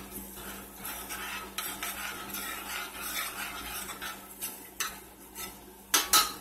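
A spoon stirring and scraping through simmering sauce in a stainless steel pot, followed by a few sharp metal clinks near the end.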